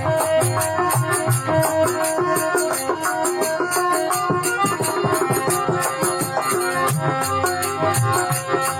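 Instrumental passage of Rajasthani folk devotional music: held melody notes over a fast, steady beat of hand percussion.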